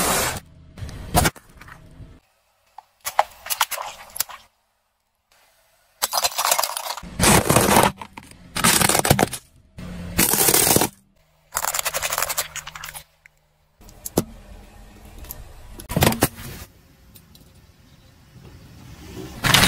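Car tyres crushing plastic toys and drink cans: a string of loud crunching and cracking bursts, each a second or so long, with short gaps between them.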